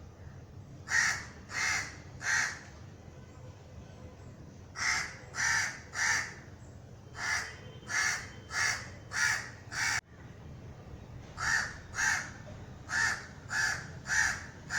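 Crow cawing: short harsh caws in bouts of three to six, about 0.6 s apart, with pauses of a second or two between bouts.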